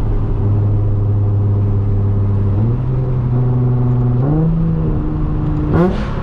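Nissan 350Z's 3.5-litre V6 pulling under way, its pitch holding steady and then stepping up twice. Near the end the engine revs up sharply in a quick throttle blip, a rev-matched downshift.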